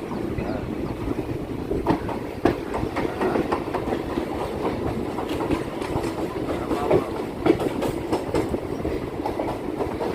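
Chennai MRTS electric suburban train running on the line: a steady rumble with irregular clattering and clacking of wheels on the track.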